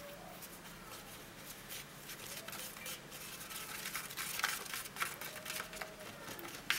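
Lollipop stick stirring powder and water in a small plastic candy-kit tray, faintly scraping and clicking against the plastic; the clicks become more frequent after about two seconds.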